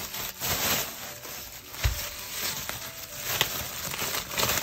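Plastic bubble wrap crinkling and rustling as wrapped items are handled, with one thump about two seconds in.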